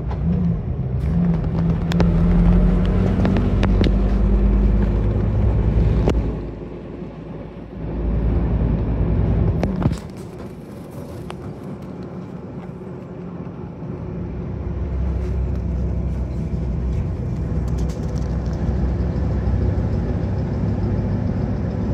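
Route bus engine running and pulling, its low hum rising in pitch over the first few seconds. The level drops sharply about ten seconds in, leaving a quieter steady rumble that grows again toward the end.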